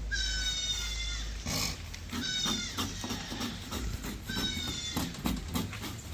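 An animal calling three times in high-pitched cries, each about half a second to a second long and falling slightly in pitch, with short sharp knocks between the calls.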